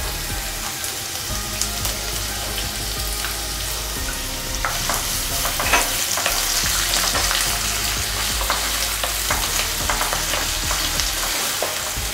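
Chopped onions sizzling in hot oil in a nonstick pan, stirred with a wooden spatula that scrapes and taps against the pan. The sizzle grows louder about halfway through.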